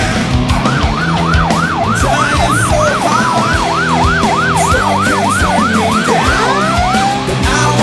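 Emergency vehicle siren on yelp, sweeping up and down rapidly about three times a second, then changing near the end to slower, longer wailing sweeps, over continuing rock music.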